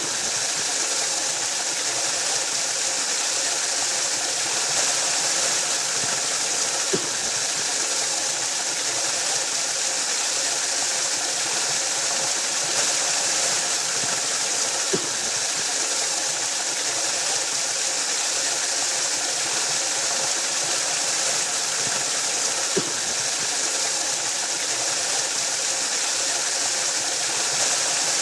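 Waterfall: a steady, even rush of falling water, with a faint brief tick about every eight seconds.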